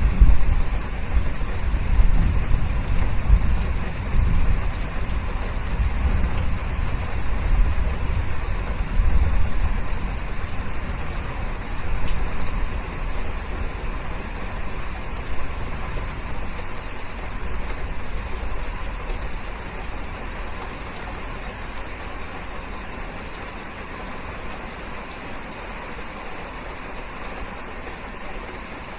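Steady rain falling, an even hiss, with a deep low rumble of distant thunder under it that is strong at first and dies away over the first twenty seconds.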